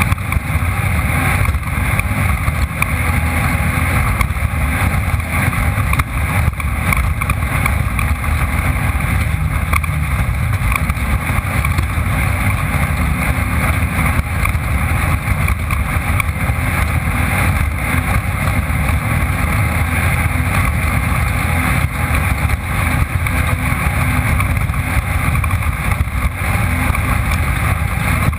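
Off-road race car's engine running hard at speed, heard from an onboard camera: a loud, steady drone mixed with wind and road noise.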